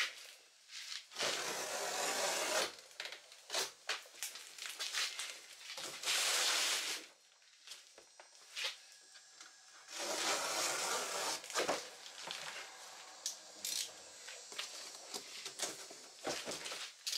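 A blade slicing and scraping through a water heater's cardboard shipping box in three longer strokes, with scattered knocks and rustles from handling the box.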